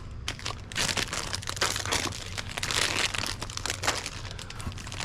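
Plastic snack packaging crinkling and rustling as it is handled, in quick irregular crackles over a steady low hum.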